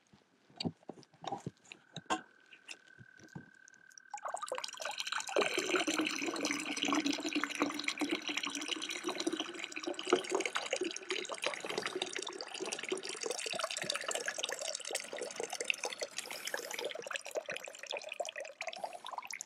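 A few light knocks of a plastic bucket being handled, then water pouring and splashing as the bucket is tipped over the side of a kayak. The steady gush starts about four seconds in and dies away near the end.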